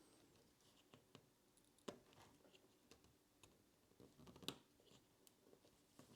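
Near silence broken by scattered faint clicks and taps of a small screwdriver and screws being worked out of a laptop's heat-pipe mount, the sharpest tap about four and a half seconds in.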